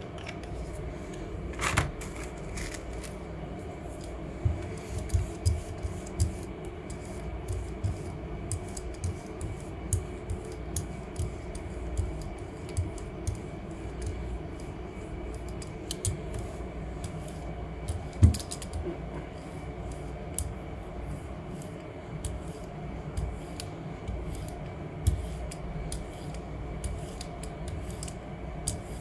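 Rubber brayer rolled back and forth over a gel printing plate to spread red paint, with many small clicks and taps as it is run, set down and lifted. A steady low hum runs beneath.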